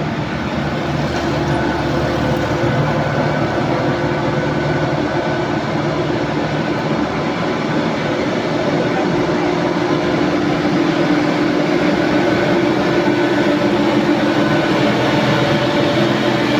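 Heavy diesel vehicle engine running under load on a steep climb: a steady drone that grows a little louder.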